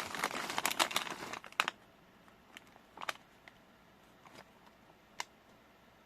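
Foil potato chip bag crinkling as it is handled: a dense burst of crackling for about the first second and a half, then a few separate crinkles spaced out over the rest.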